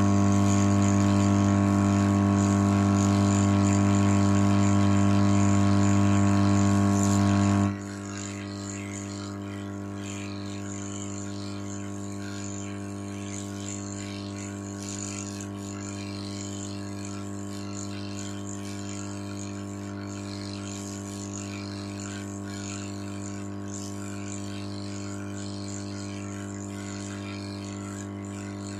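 Hot air gun of a rework station running with a steady electrical hum and a faint hiss of air, heating the phone's circuit board to lift the shield cover. About eight seconds in it drops abruptly to a quieter level and then runs on steadily.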